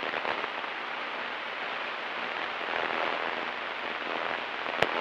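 Steady, even hiss on the light aircraft's headset intercom and radio audio feed between radio calls, with one sharp click shortly before the end.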